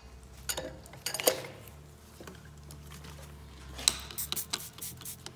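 Metal parts clinking and knocking as a steel clamp bar, nuts and washers are worked off the studs of a hydraulic hammer's accumulator: a few clinks in the first second or so, then a quick run of them about four seconds in.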